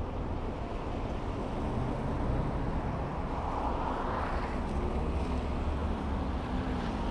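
A car driving on a city road: a steady low engine and road rumble with tyre hiss. About four seconds in, the hiss swells up and falls away again.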